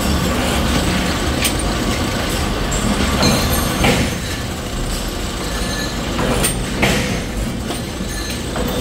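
Electric pillar drill press running and drilling through a stack of steel sprocket blanks, a steady machine hum. Several sharp metal clinks come through it as parts are handled.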